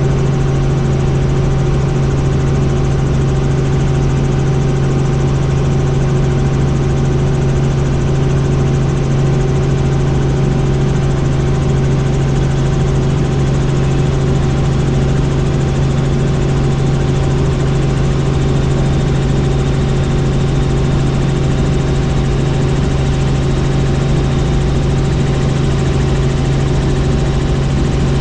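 Helicopter in flight: a loud, steady drone of engine and rotors with a strong low hum and a few fainter steady tones above it.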